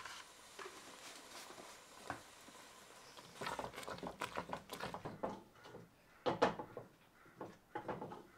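Wooden spatula stirring thick cooking fruit mash in a metal pot, with quick knocks and scrapes against the pot that come in a dense run from about three seconds in, then a few louder ones later.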